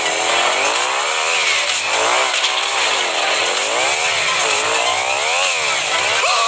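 A buzzing motor sound whose pitch rises and falls over and over, roughly once a second.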